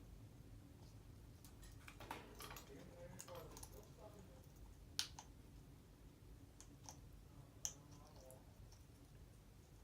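African grey parrot making scattered sharp clicks, with a little faint mumbled vocalizing about two to four seconds in; the loudest click comes about five seconds in.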